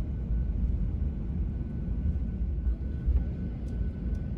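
Steady low engine and road rumble inside a moving airport ramp bus, with a faint steady high-pitched whine running through it.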